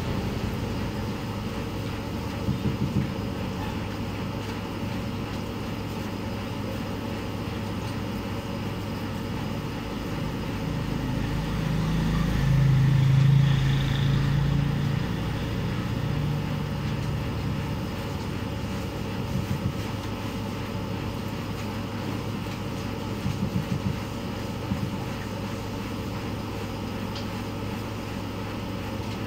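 A passing engine swells up and fades over several seconds about halfway through, over a steady low hum. A few short clusters of light knocks come and go.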